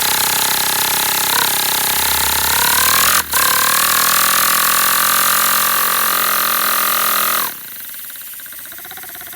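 Air compressor and the air-driven single-cylinder paper engine running with a loud steady pitched hum. About seven and a half seconds in it cuts off abruptly, leaving a much quieter fast rattle, a change the builder takes for the engine's intake coming off.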